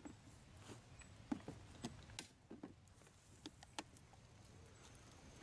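Faint scattered clicks and light knocks of handling: a steel wood drill bit and a clear plastic storage box being moved about by gloved hands.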